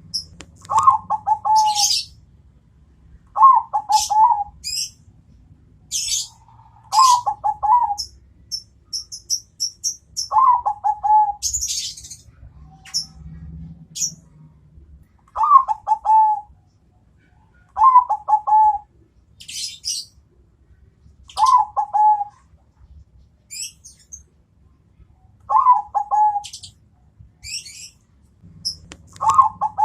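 Zebra dove (Bangkok-type perkutut) singing, repeating its coo phrase about every three seconds, each a quick run of soft falling notes. Short high chirps of another small bird come between the phrases.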